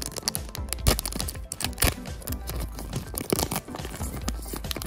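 Foil trading card booster pack being torn open and crinkled by hands, in many small crackling tears, over background music.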